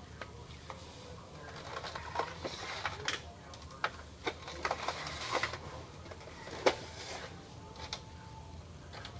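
Plastic clicks, knocks and rattles from an Epson L210 printer's housing and parts being handled as the printer is taken apart, scattered irregularly through the middle, with one sharp click about two-thirds of the way in.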